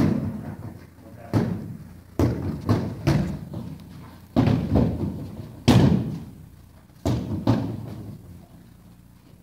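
Kicks landing on freestanding heavy bags: a string of dull thumps, about ten, at uneven spacing as several students strike their bags in turn.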